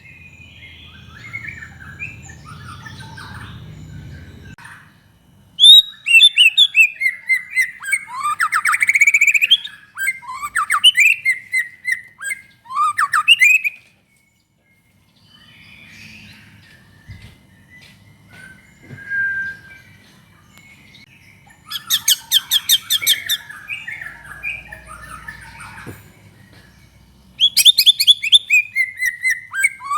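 White-rumped shama singing in full song: loud phrases of varied rich whistles and fast chattering trills, separated by quieter stretches. The song stops dead for about a second near the middle.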